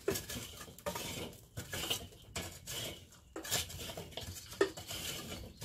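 Glowing charcoal briquettes being raked into a ring around the inside of a kettle grill's bowl: a run of irregular scrapes and clinks as the coals are pushed across the bowl.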